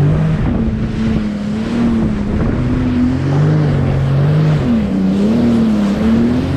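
Jet ski engine running at speed, its pitch slowly rising and falling, over a rush of wind and spray.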